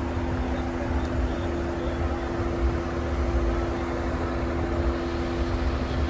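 Off-road vehicle engine idling at a steady speed, giving a constant two-tone hum with an uneven low rumble underneath.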